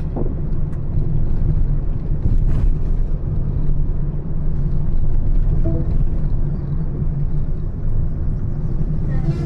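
Steady low rumble of a vehicle running on the road, with a brief faint tone about six seconds in.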